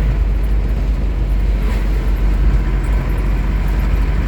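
2001 Isuzu Panther pickup's 2500cc direct-injection diesel engine running steadily while the truck is driven, together with road noise.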